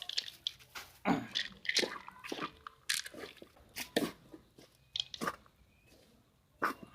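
Irregular wet crunching and squishing as shrimp-trap bait is worked by hand, with chopped catfish heads just added to the mix.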